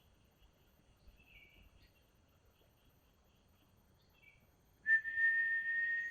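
Common iora (cipoh) calling: faint short chirps, then about five seconds in one loud, long, steady whistle held for over a second. Faint insects hum in the background.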